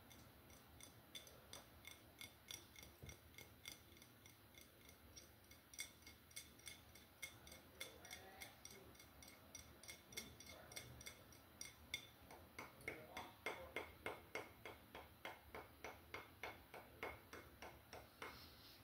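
Fingertips and nails tapping on a partly filled glass bottle of Smirnoff Ice: faint, quick, even taps, two to three a second, each with a light glassy ring, coming thicker and louder over the last several seconds.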